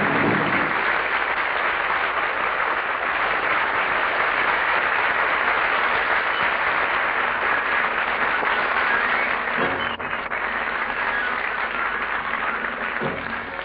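Studio audience applauding, a steady dense clapping that thins out a little toward the end.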